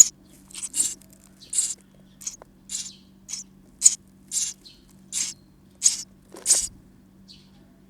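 Sparrow nestlings in a nest box making a run of short, hissy, high-pitched sounds, about two a second, which stop shortly before the end.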